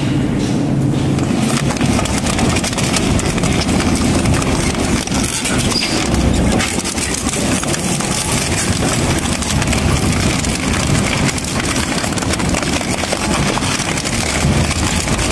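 Industrial shredder running under load: a steady low machine hum under a dense, unbroken run of cracks, snaps and crunches as material is torn apart.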